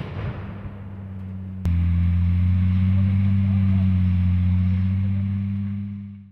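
The fading tail of a pyrotechnic blast, then the Sd.Kfz. 251 half-track's engine running with a steady low drone. The drone gets much louder about a second and a half in and fades out near the end.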